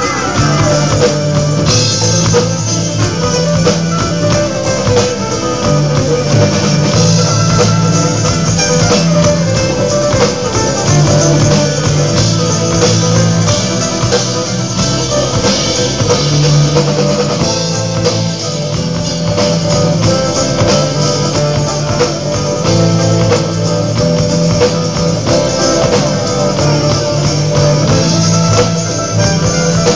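Live band playing through a PA: a strummed amplified acoustic guitar over a bass line that steps from note to note, with a tambourine shaking along.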